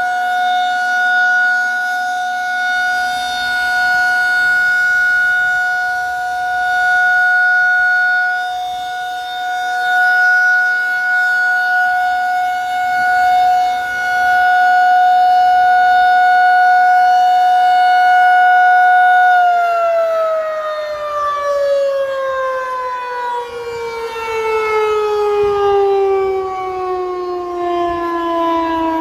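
Federal Signal 2001-SRN electromechanical outdoor warning siren sounding its steady one-minute test alert, held at one pitch and swelling and fading in loudness. About two-thirds of the way through it shuts off and winds down, the pitch falling steadily.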